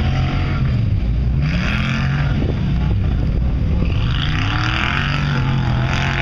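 Off-road vehicle's engine revving up and down over and over, its pitch rising and falling every second or two.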